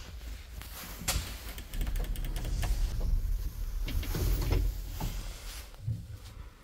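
Traction elevator's sliding doors closing: a low rumble with a sharp click early on, a quick run of clicks in the middle and a short knock near the end.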